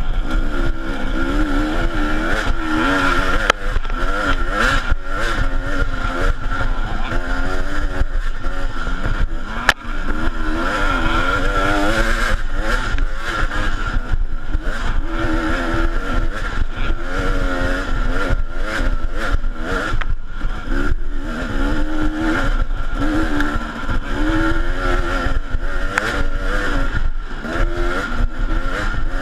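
KTM dirt bike engine heard from a camera on the bike, its pitch rising and falling again and again as the rider works the throttle on a twisting trail, with occasional knocks from the rough ground.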